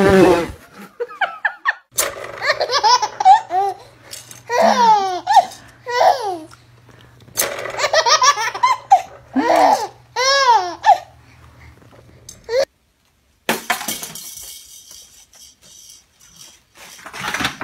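A baby laughing: repeated high-pitched giggles and squealing laughs in short bursts, which cut off suddenly about two-thirds of the way in.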